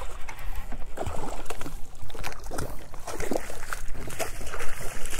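Water splashing and sloshing beside a small fishing boat, with irregular knocks, as a hooked redfish is brought to the net.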